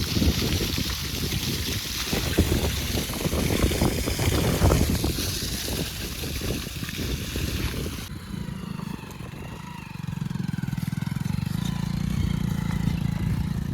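Hero Splendor Plus motorcycle's single-cylinder engine running while the bike rides through water, with loud splashing and spray. About eight seconds in, the splashing stops abruptly and the engine runs on in a steady hum.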